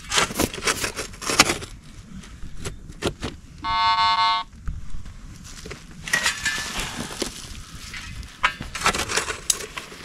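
Hand digging in a pit: a small digging tool knocks and scrapes in earth, with a quick run of strikes at the start and more near the end. About four seconds in there is a single beep of about a second from a metal detector. Around six seconds in, a panful of loose soil is thrown out of the pit with a rushing scatter.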